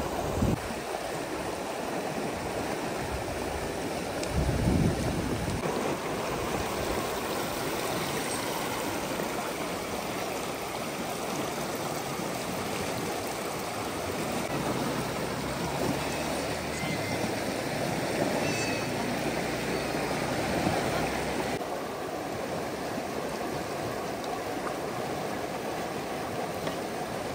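Steady rush of running water, with a couple of low thumps in the first five seconds.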